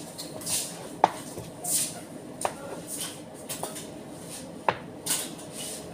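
White plastic food tubs being handled as cheese is packed into them: about four sharp clicks and knocks, with short rustling swishes in between.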